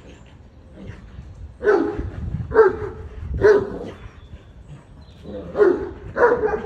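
Irish wolfhounds barking in play: five short, deep barks in two groups, three close together and then two more after a pause.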